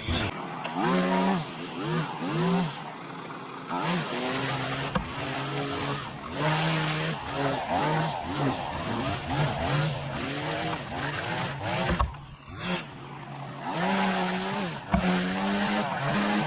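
A small two-stroke chainsaw running and being revved up and down as it cuts limbs, dropping off briefly twice before picking up again.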